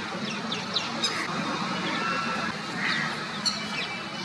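Parrots squawking with short, sharp, high-pitched calls in scattered bursts while they squabble over food.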